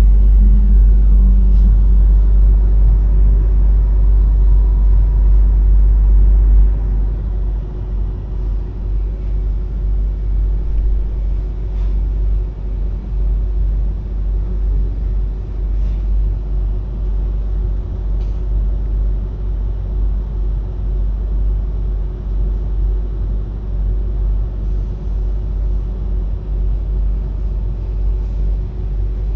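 Airport Rail Link train running between stations, heard from inside the car: a loud, steady low rumble with a faint steady hum. The rumble drops in level about seven seconds in.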